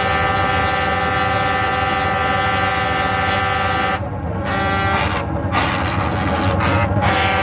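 Fire-breathing calliope's whistle pipes sounding held chords of several steady notes together: one long chord for about four seconds, then three shorter chords with brief gaps. A steady low rumble runs underneath.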